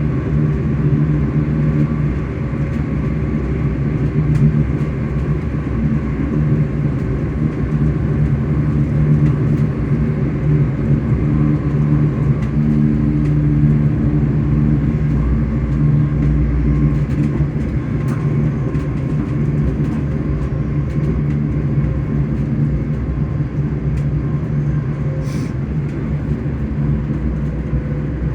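ScotRail Class 385 electric train running, its traction motors giving a steady, low hum over the rumble of the train in motion.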